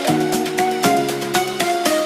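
Background music: an electronic track with a steady beat and a melody of short, changing notes.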